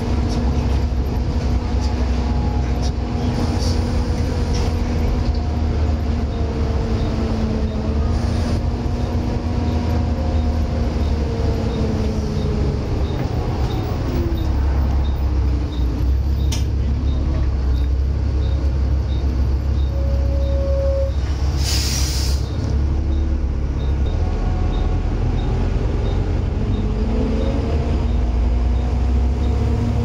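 A Volvo B7TL double-decker bus under way, heard from the upper deck. Its diesel engine runs with a steady low drone, joined by the whine of the cooling fan (the 'hoover') and the ZF automatic gearbox. The whines fall as the bus slows and rise again as it pulls away near the end, and a short burst of air hiss comes about two-thirds of the way through.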